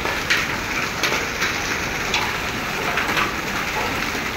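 A hailstorm falling: a steady hiss of rain and hail on the ground and roofs, with a few sharp ticks of individual hailstones striking.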